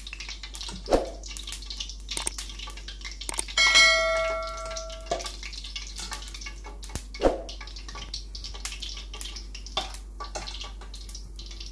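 Spoonfuls of besan batter frying in hot oil in a cast-iron karahi, a steady crackling sizzle with two louder knocks, about one second and seven seconds in. About three and a half seconds in, a bell chime from the subscribe-button sound effect rings out loudest and fades over about a second and a half.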